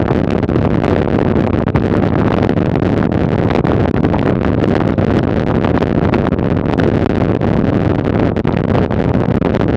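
Bicycle rattling over cobblestones: a loud, steady clatter of tyres and frame shaking on the uneven stones, with dense small knocks throughout.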